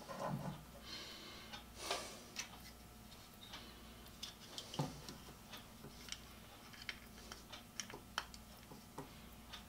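Scattered light clicks and ticks of small crimp terminals and hand tools being picked up and handled, with a few short rustles near the start and about two seconds in.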